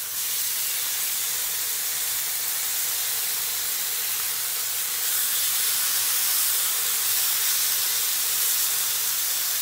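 Marinated chicken breasts sizzling in hot oil in a nonstick frying pan, a steady hiss as they are seared and turned with tongs. It grows a little louder about five seconds in.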